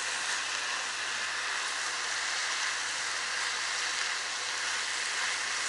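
Sliced champignon mushrooms with onion and chicken breast pieces frying in oil in two frying pans: a steady, even sizzle.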